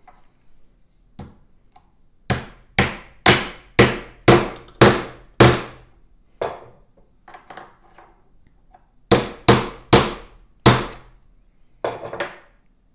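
Hammer tapping a bearing into a tight-fitting 3D-printed plastic part on a wooden table: a run of about seven sharp strikes, roughly two a second, then a pause, then four more strikes and a couple of lighter taps near the end.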